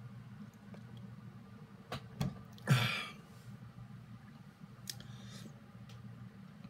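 A man drinking from a plastic water bottle: a few small clicks and knocks as the bottle is handled, and a short breathy exhale about three seconds in, over a low steady room hum.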